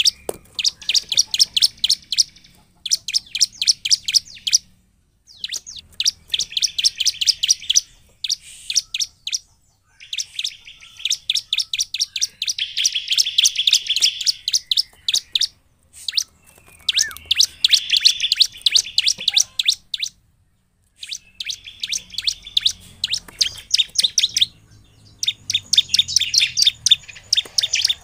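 Bar-winged prinia (ciblek) singing: bursts of fast, evenly spaced, sharp high chips, each run lasting a second to several seconds, broken by short pauses.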